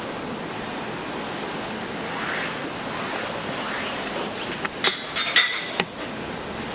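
Steady background hiss, then, about five seconds in, a few sharp clinks with a brief ring as altar vessels are handled and set down on the altar.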